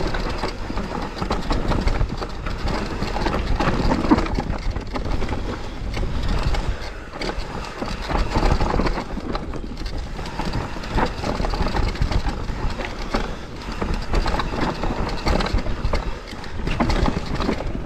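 Mountain bike clattering down a rough, steep trail: tyres on dirt and rock with a dense run of irregular knocks and rattles, rising and falling in loudness.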